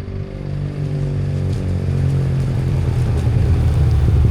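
Yamaha TMAX maxi-scooter's parallel-twin engine running, a steady note that grows louder and rougher over the seconds.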